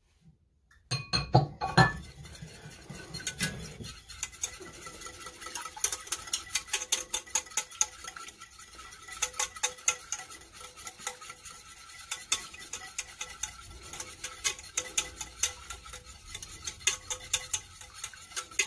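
Wire whisk clinking rapidly and unevenly against the sides of a small stainless steel saucepan as it stirs a liquid butter-based buffalo sauce, with a few louder clanks about a second in.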